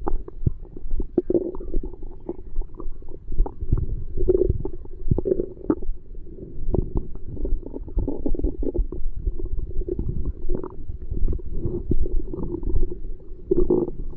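A person's stomach gurgling and rumbling continuously while digesting a just-finished dinner, with irregular gurgles and many short pops.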